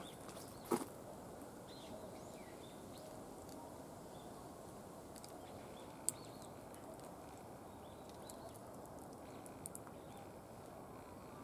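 Quiet outdoor ambience: a steady faint hiss with scattered small bird chirps, and a sharp click about a second in and another about six seconds in.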